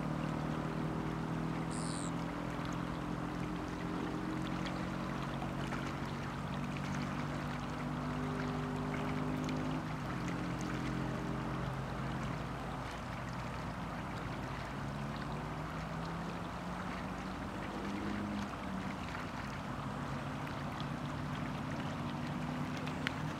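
A distant motor droning steadily, its pitch wavering slowly, over a constant wash of water and wind noise. A single brief high chirp comes about two seconds in.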